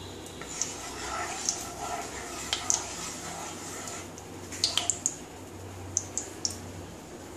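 Mustard oil heating in a nonstick kadai, giving scattered small crackles and pops while a wooden spatula swirls it around the pan. A low steady hum runs underneath.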